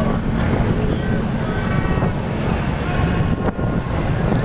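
Wind buffeting the microphone while riding a motorbike, over the steady running of many motorbike engines in dense traffic.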